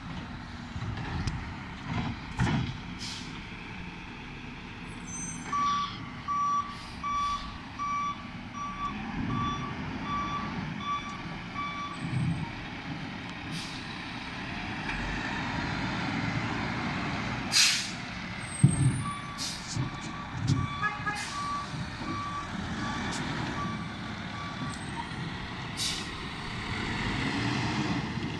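Front-loading garbage truck running and manoeuvring, its reversing alarm beeping about twice a second in two separate runs. A sharp air-brake hiss sounds about two-thirds of the way through, among scattered clunks.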